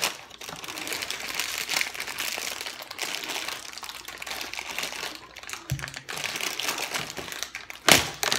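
Inner bag of a boxed cookie mix crinkling and rustling as it is pulled and twisted at to open it, then bursting open suddenly with one loud pop near the end.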